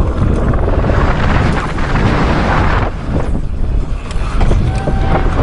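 Wind buffeting a helmet camera's microphone, mixed with mountain bike tyres sliding and skidding over loose sand and gravel on a steep descent. The noise is heaviest for the first three seconds, then eases briefly.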